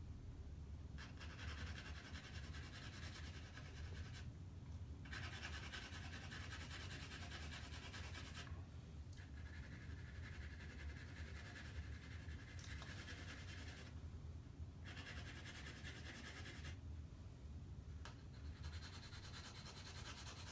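Graphite pencil shading on drawing paper: a soft scratchy hiss in stretches of two to four seconds, broken by short pauses of about a second.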